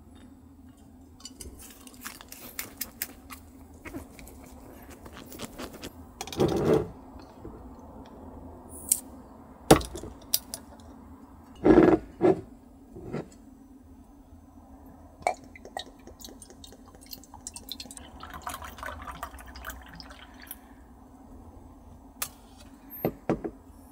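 Tableware clicking and knocking, with two louder brief splashes of liquid about six and twelve seconds in and a softer stretch of liquid sound near the end, over a steady low hum.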